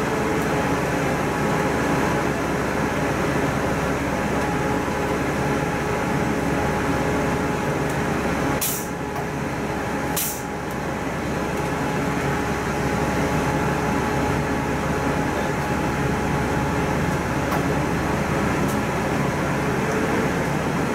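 City bus running, heard from inside: a steady engine and road noise, with two short hisses of air about a second and a half apart a little before halfway.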